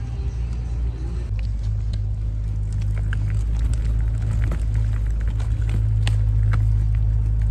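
Folding wagon's wheels rolling over a park path: a steady low rumble that grows a little louder partway through, with scattered small clicks and rattles.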